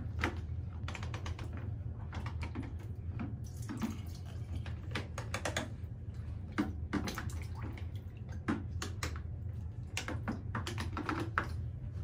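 Hands splashing and sloshing water in a plastic basin while bathing a plastic baby doll, with irregular small splashes and light clicks as the doll knocks against the plastic. A steady low hum runs underneath.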